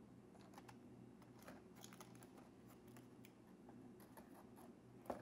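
Near silence with faint, scattered light clicks and crinkles as small motor parts in clear plastic bags are handled in a plastic tray, and one sharper click near the end.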